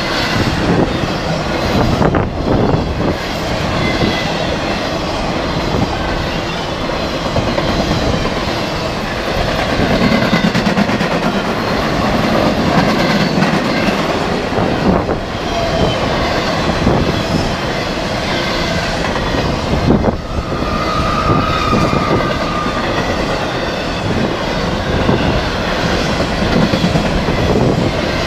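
Empty Union Pacific intermodal freight cars rolling past at close range: a steady rumble and rattle of steel wheels on rail, with clickety-clack over rail joints and short high squeals from the wheels here and there, the clearest about three-quarters of the way in.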